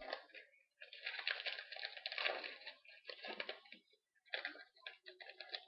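Trading cards being handled and flipped through, giving a rustling, crackly sound in two spells: one of about three seconds, then a shorter one near the end.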